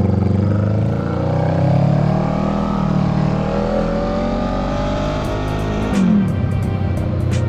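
2018 Honda Rebel 500's parallel-twin engine through a Radiant Cycles Shorty GP slip-on exhaust, accelerating with the revs climbing. The revs drop sharply about six seconds in.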